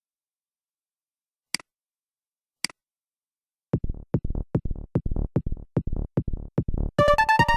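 Two short clicks, then an old Nokia polyphonic MIDI ringtone starts: a fast drum-machine beat of low hits, with a synth melody coming in near the end.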